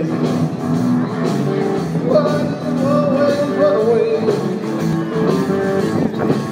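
Rock-and-roll played live by a small band through outdoor PA speakers: electric guitars and drums, with a melody line that wavers in pitch through the middle.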